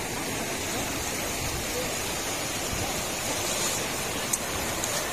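Steady rush of flowing river water over rocks.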